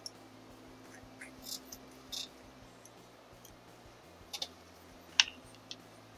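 Scattered light clicks and taps of a small hand tool and metal hardware being handled while a brake hose guide is fitted to the fork, about eight in all, the sharpest a little after five seconds in.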